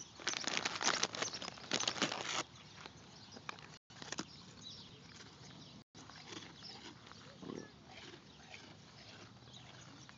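Alpaca snuffling and working its mouth right against the phone's microphone: a loud burst of dense crackling for the first two seconds or so, then quieter scattered mouth and nose sounds.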